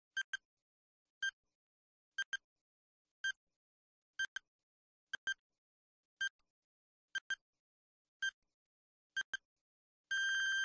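Quiz countdown-timer sound effect: short electronic beeps about once a second, several of them quick double beeps. Near the end a long continuous beep of the same pitch begins as the countdown runs out.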